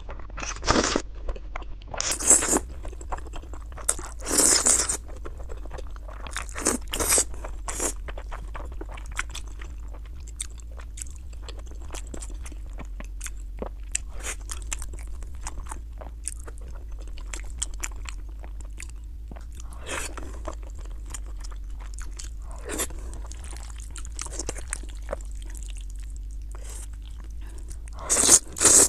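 Close-miked mukbang eating: wide cold liangpi noodles in sesame sauce slurped up off chopsticks, with wet chewing between mouthfuls. Loud slurps come in the first few seconds and again near the end, with quieter chewing through the middle.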